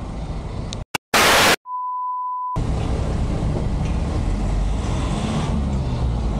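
A short blast of loud static and then a steady one-second censor bleep cut in over the truck-cab sound, blanking out a swear word. After the bleep, the engine and road noise inside the cab of a JAC light truck comes back.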